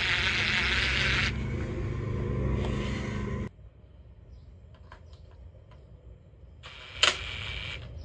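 Cordless drill-driver running steadily for about three and a half seconds as it backs a screw out of an e-bike's front mudguard fitting, then stopping abruptly. After a few faint clicks it runs again briefly near the end, starting with a sharp click.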